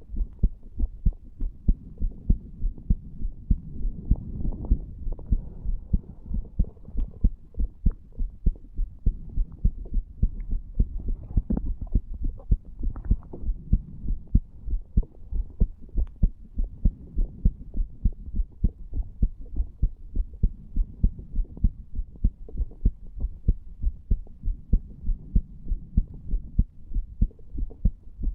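Human heartbeat recorded at the chest over the tricuspid valve area: a steady, even train of low, muffled thumps over a faint low hum.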